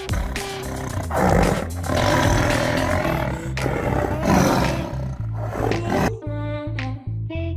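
Tiger roaring in several loud outbursts over background music with a steady bass line; the roars stop about six seconds in, leaving only the music.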